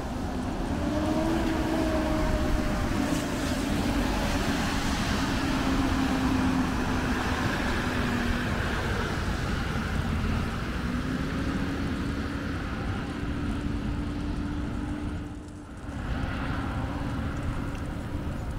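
Street traffic: a motor vehicle's engine running with a steady hum that drifts slightly in pitch, over a wash of road and wind noise, dipping briefly near the end.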